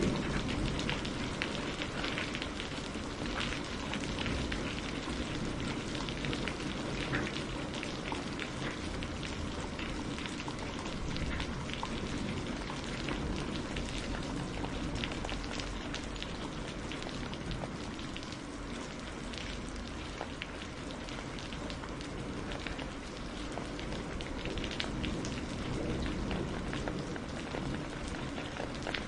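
Steady rain falling on a surface, a continuous hiss with many small drop ticks.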